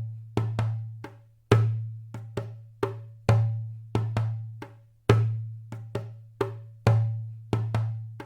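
Background music: a percussion loop of wood-block-like knocks over a low bass note, with a steady beat that repeats about every second and three-quarters.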